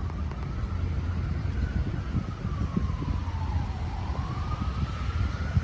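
Emergency vehicle siren wailing in a slow rise and fall, dipping once about two-thirds of the way through and climbing again, over a steady low rumble.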